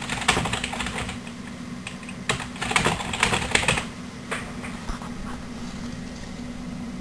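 Typing on a computer keyboard: quick runs of key clicks, with a pause between them, then only a few scattered keystrokes toward the end, over a steady low hum.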